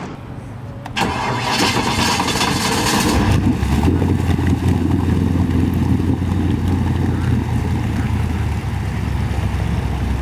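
A jet boat engine starts about a second in with a loud burst of noise, then settles into a steady, low-pitched idle as the boat moves off.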